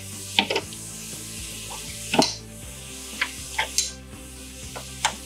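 Sharp metal clicks and clunks of a grinding vial being seated and the hinged metal clamp of a Spex Freezer/Mill cryogenic grinder's chamber being swung shut and latched by hand. There are about seven knocks, the loudest about two seconds in, over a steady hiss.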